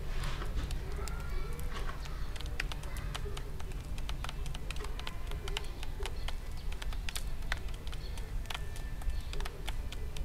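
Eurasian tree sparrows pecking at seed in a shallow feeding tray: a fast, irregular run of small sharp ticks and clicks over a low steady rumble, with a dove cooing faintly now and then.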